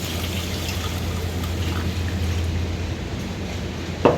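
Water being poured into a pot of dry brown rice, over the steady low hum of an air conditioner. A short, sharp sound comes just before the end.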